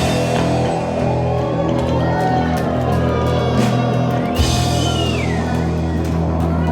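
Rock music, an instrumental passage: long-held low notes under a lead line that bends and slides in pitch.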